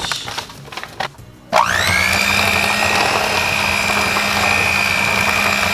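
Electric hand mixer switched on about a second and a half in, its motor whine rising quickly to speed and then running steadily, beating cream cheese, eggs and sweetener in a glass bowl. Before it, a soft rustle of the sweetener bag.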